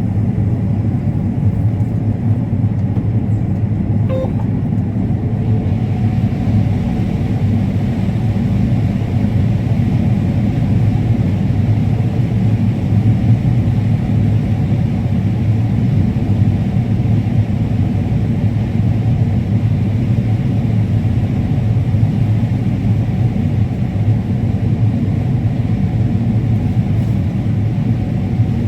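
Combine harvester running with a steady low drone of engine and machinery.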